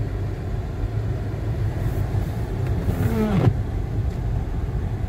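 Car driving slowly, a steady low rumble of engine and tyres. A brief falling voice-like sound about three seconds in.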